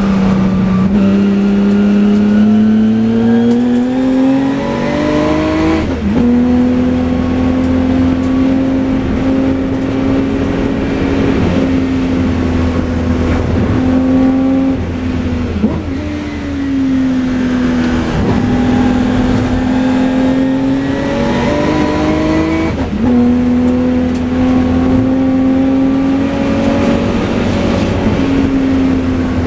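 Jaguar Broadspeed XJ12C's V12 racing engine under load, heard from the car's onboard camera. The revs climb to a sharp gear change about six seconds in, then hold high with several more shifts and lifts through the corners.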